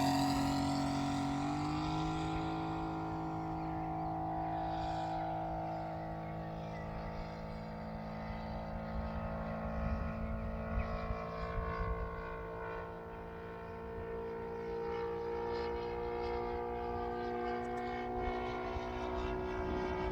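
Saito FG-60R3 three-cylinder four-stroke radial petrol engine of a large RC model plane running steadily in flight, a drone that fades as the plane moves off. Its pitch steps up slightly about a second and a half in and then holds.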